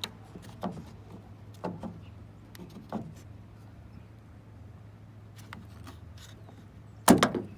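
Light metal clicks and scrapes as a flathead screwdriver pries the retaining clip off the lower end of a trunk lift support, then one loud clunk about seven seconds in.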